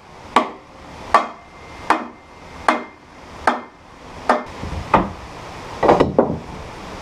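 A hammer striking a metal part of the sawmill's steel frame, about nine steady blows a little over one a second, each with a short metallic ring.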